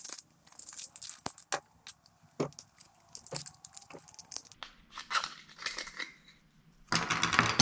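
PLA support material cracking and snapping as it is pried and broken away from a freshly 3D-printed plastic wheel cap with a hand tool. There is a rapid run of sharp cracks with scraping in between, quieter for a while, then a denser burst of crackling near the end.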